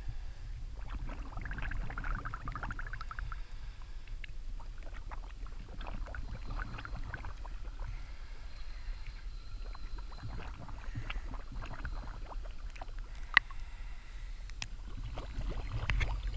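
Water sloshing and splashing close to the surface as a diver in a canvas dress wades deeper, in irregular bursts over a steady low rumble, with one sharp click about two-thirds of the way through.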